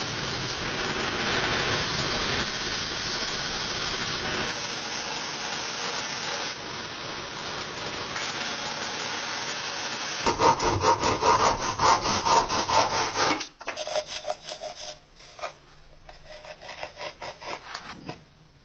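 Scraping and rasping of a hand tool worked against the workpiece: a steady scrape for about ten seconds, then quick, louder back-and-forth strokes for about three seconds, then softer, sparser strokes.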